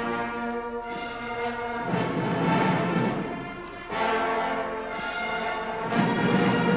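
Brass band playing a slow, sustained ceremonial tune, with held chords that change every second or two.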